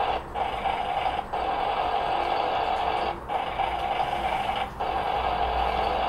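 Toy tank's sound module playing a recorded tank engine-and-tracks driving sound through its small speaker, a steady noise cut by brief gaps of a fraction of a second every second or two, where the looped MP3 restarts or the drive command changes.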